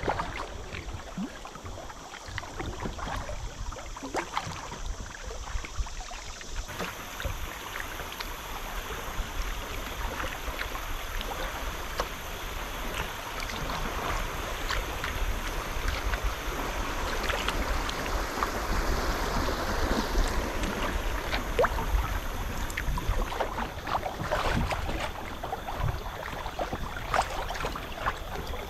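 River water burbling and lapping against a kayak's hull as it drifts through rippling current, with many small splashes throughout and a low rumble underneath.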